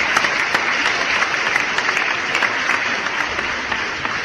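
Audience applauding, a dense patter of many hands clapping, which begins to die down toward the end.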